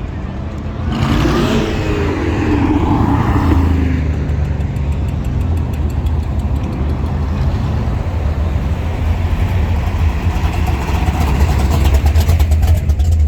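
Car engines running on a busy street with a steady deep rumble. About a second in, one engine gets louder, its pitch rising and then falling over a couple of seconds.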